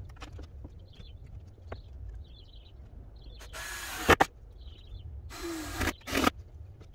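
A cordless drill driving screws into the wood of a shed wall in short bursts, with a couple of sharp knocks about four seconds in.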